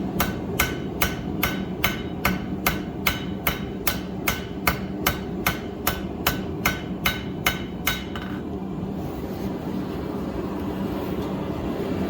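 Hand hammer forging hot 5160 steel on an anvil: a steady run of about twenty ringing blows, roughly two and a half a second, that stops about eight seconds in. A steady drone runs underneath throughout.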